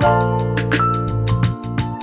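Background music: held instrumental chords over a steady beat.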